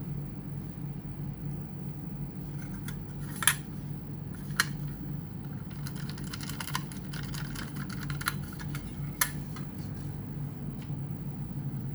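Small clicks and taps of laptop parts and hand tools being handled, with a few sharper clicks and a quick run of ticks in the middle, over a steady low hum.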